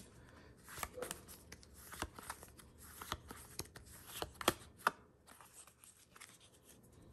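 Pokémon trading cards sliding and flicking against each other as a freshly opened stack is thumbed through card by card: faint scattered clicks and rustles, the sharpest two about four and a half to five seconds in, then sparser and quieter.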